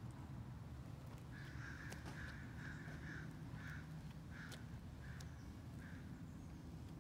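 A bird outdoors calling in a run of short, evenly repeated calls at one pitch, starting about a second in and fading out near the end, over a faint low rumble.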